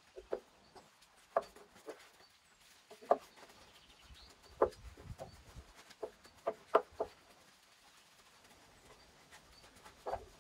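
Paintbrush knocking and dabbing against scorched wooden boards while working in a finish: about a dozen short, irregular taps.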